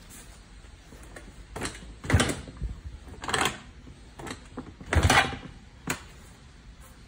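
Plastic scooter bodywork and seat being handled: a few irregular knocks and rattles, the loudest about two seconds in and about five seconds in.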